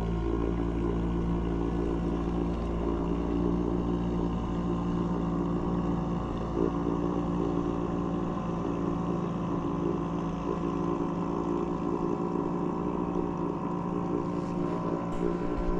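An engine running steadily at an even pitch, the pitch wavering slightly near the end.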